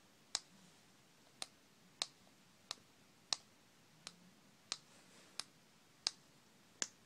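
Rubber-capped rocker switches on a Remtron Boarbot handheld remote clicking as they are pressed one after another, about ten sharp clicks at a steady pace of roughly three every two seconds. The switches are being tested after their tarnished contacts were cleaned, and the remote is working normally.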